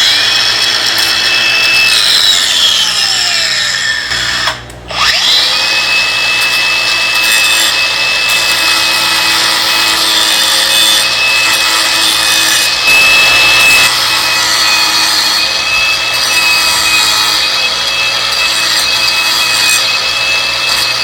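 A power grinder grinding the head off a pin of a motorcycle drive chain, a steady high whine with a grinding rasp. About four seconds in it spins down and stops, then starts up again a second later and runs on.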